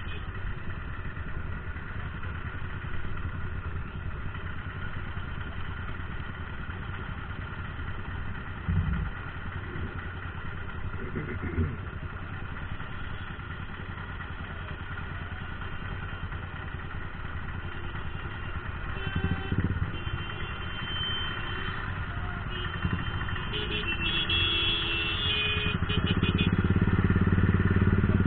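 Motorcycle engine running at idle in stopped city traffic, with the surrounding hum of other vehicles. The engine grows louder near the end.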